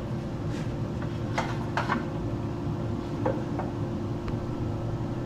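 Several light knocks and scrapes as a wooden log and fence are handled on a bandsaw's table, over a steady background hum.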